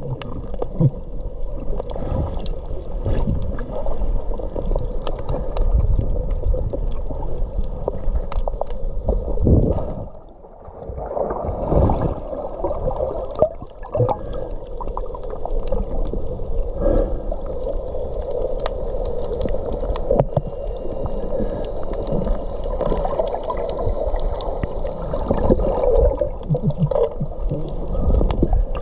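Muffled underwater sound heard through a camera's waterproof housing: a steady low rumble and gurgle of moving water with scattered small clicks. It briefly drops quieter about a third of the way in.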